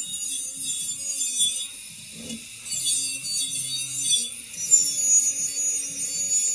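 Abrasive scraping on the spare wheel, in steady strokes with short pauses about two and four seconds in, over background music with low held notes.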